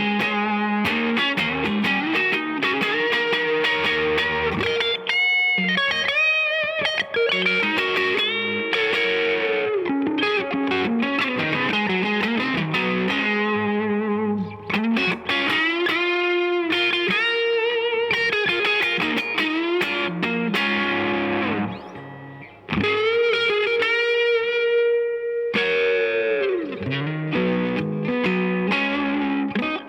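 Electric guitar, a Stratocaster with single-coil pickups, played through a Mesa/Boogie California Tweed amp: lead lines with string bends and vibrato, with a brief break about two-thirds of the way in.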